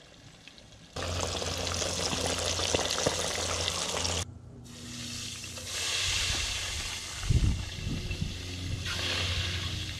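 Whole bluegill deep-frying in hot oil in a pot: a steady sizzling crackle that starts suddenly about a second in, with a few low thumps a little past halfway.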